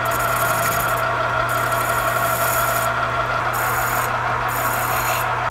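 Metal lathe running with a steady hum and whine while the end of a steel seat tube is faced in the spinning chuck, then a flat file is held across the turning tube. Repeated scraping hisses come and go over the machine's hum, about one every second, as the cut and the file strokes take metal off.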